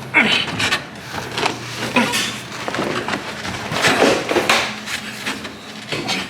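Irregular knocks, scrapes and rubbing as a full-size spare tire is wrestled out of its compartment in a station wagon's cargo area.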